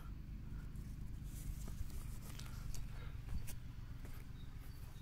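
Faint scratching and a few light clicks from handling a solar panel's cable leads and their lever-type wire connector, over a low steady rumble.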